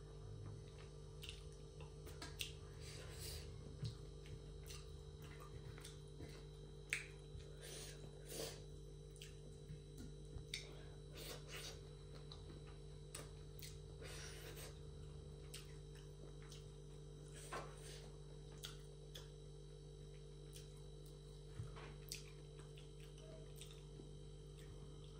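Close-up eating sounds from a meal of fish curry and rice: scattered wet clicks and smacks of chewing and lips, at irregular intervals, over a steady low electrical hum.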